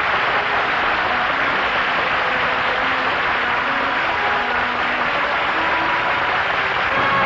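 Studio audience applauding. Held notes of music come in underneath a couple of seconds in and grow stronger toward the end.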